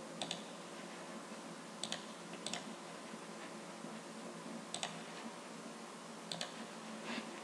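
Computer mouse clicking: about six quick double clicks at uneven intervals over a faint steady room hum.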